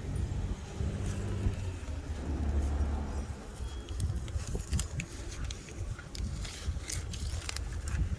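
Wrench working on a car battery terminal: irregular light metallic clicks and taps, most of them in the second half, over a low steady rumble.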